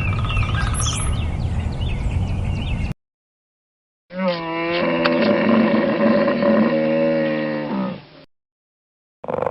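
Cow mooing: one long, low moo of about four seconds that starts about four seconds in, after a short silence. Before it comes a separate stretch of low rumbling noise with faint high chirps.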